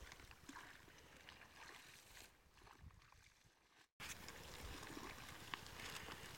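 Faint rustling of water hyacinth leaves and light splashing and dripping as hands work through the plants in shallow canal water, with scattered small clicks. The sound cuts out for an instant a little past halfway, then carries on as before.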